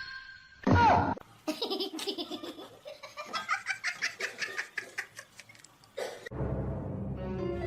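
A short loud falling sound, then a long run of laughter in quick bursts lasting several seconds, with music coming back near the end.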